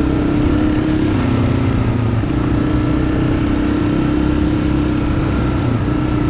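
Dirt bike engine running steadily under way on a dirt trail; its pitch drops for about a second a little after the start, comes back up, and drops again near the end.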